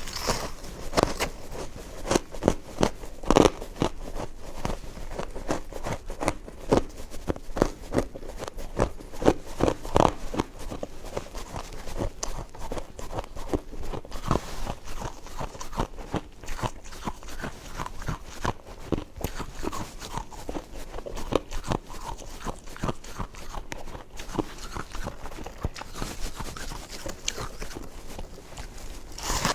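Close-up crunching of frozen snow ice being bitten and chewed: a dense run of irregular crisp crunches and crackles, with some louder bites in the first ten seconds.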